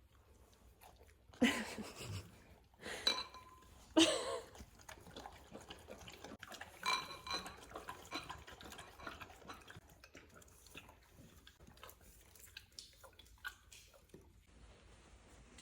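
Dogs lapping up coconut water from bowls: a run of small wet lapping clicks, with a few louder clinks and knocks of the bowls in the first few seconds.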